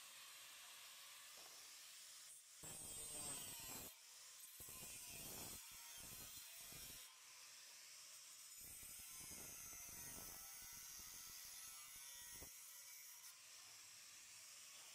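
Faint sound of a handheld angle grinder cutting thin steel trunking, in several short passes with pauses between them.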